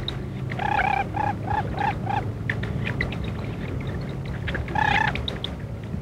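Lesser whistling ducks calling at the nest: a quick run of about five short, evenly spaced calls in the first couple of seconds and one more near the end, over a steady low hum.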